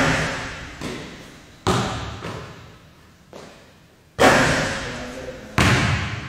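A basketball bouncing and thudding hard, about six sharp impacts at uneven intervals, each ringing out in the echo of a large gym.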